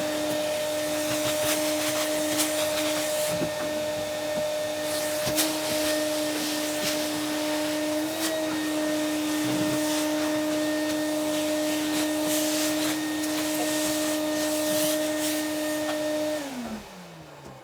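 Vacuum cleaner motor running steadily, with scattered clicks and rattles of debris, then switched off and spinning down with a falling whine near the end.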